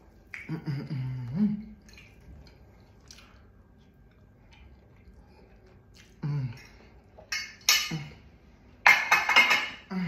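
A woman tasting food: a gliding 'mmm' of pleasure early on, then short murmurs, with faint fork and plate clinks in the quieter stretch. A loud breathy vocal burst comes near the end.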